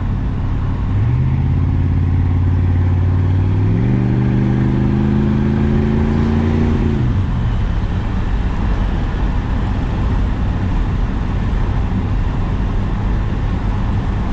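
1993 Chevrolet Caprice wagon's 305 small-block V8 pulling under way: its pitch climbs about a second in, steps higher near four seconds, then drops away around seven seconds as the throttle eases, leaving steady road noise.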